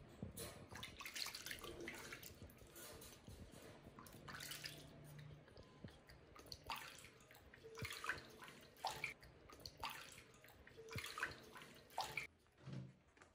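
Water splashing and dripping in irregular small splashes.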